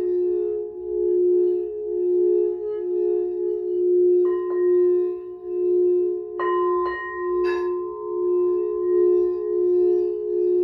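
Singing bowls: a low bowl sung steadily around its rim, its tone swelling and fading about once a second. A higher-pitched bowl is struck twice a little before halfway and three times just after, each strike ringing on over the drone.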